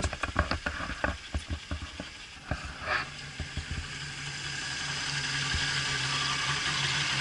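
Yamaha 200 outboard motor idling, a steady low hum that comes in about three seconds in under a rising hiss. Before the hum, a quick run of sharp taps and knocks.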